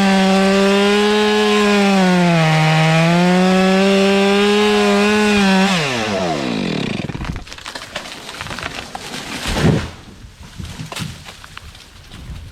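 Stihl two-stroke chainsaw at full throttle cutting through the trunk, its pitch sagging under load about two seconds in. About six seconds in the throttle is released and the revs fall away. Scattered cracking follows, then a thump a few seconds later: the tree breaking at the hinge and coming down.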